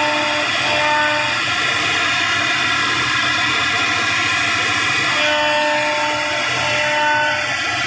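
CNC router spindle running steadily while its bit carves a relief design into a wooden panel: a constant high whine over a cutting hiss. A lower pitched tone comes and goes a few times as the head moves.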